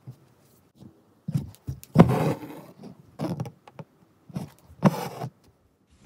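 Embroidery thread pulled through taut fabric while the cloth is handled, in a series of short rustling, scraping pulls. The loudest come about two seconds in and again near five seconds.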